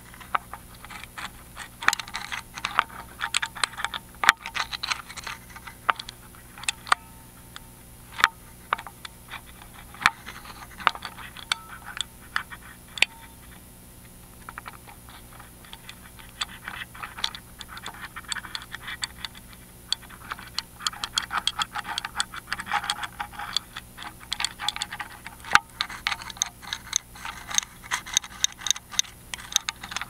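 Lock pick scraping and clicking inside a Miwa EC magnetic-pin cylinder lock, picked up by a microphone on the lock body: dense scratching in stretches with many sharp clicks, a quieter patch about halfway through.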